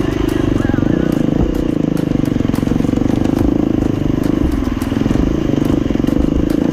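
Enduro dirt bike engine running steadily at a moderate speed, its firing pulses rapid and even, with a brief easing off about five seconds in and scattered light clicks and clatter over it.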